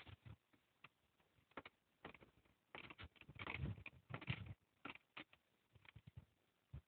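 Faint, scattered clicks and knocks with a few short rustling noises, most of them a little past the middle, like handling noise from hands and tools at work.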